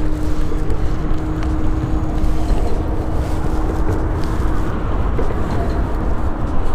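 Wind buffeting the microphone in a steady low rumble, with a faint steady hum that stops about two-thirds of the way through.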